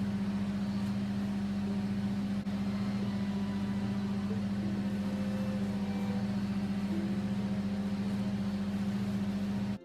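Steady low machine hum from a small motor running, cutting off abruptly near the end.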